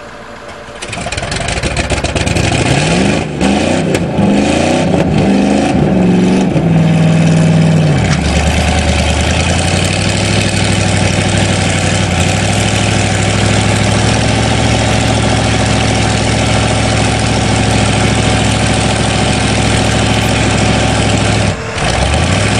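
Engines of a GMC 400 4x4 pickup and a 7.3 diesel school bus revving hard under load as the two vehicles pull against each other. The revs climb and fall over the first several seconds, then hold a steady drone, with a brief dip and a climb again near the end.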